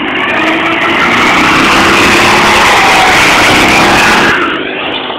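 Small home-built buggy's engine revving hard as it pulls away, with a loud rushing noise over it that drops away about four and a half seconds in.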